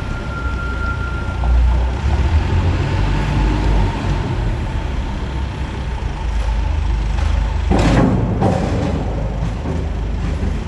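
Diesel engine of a Cat 420 backhoe loader running steadily under work, with two brief noisy bursts close together about eight seconds in.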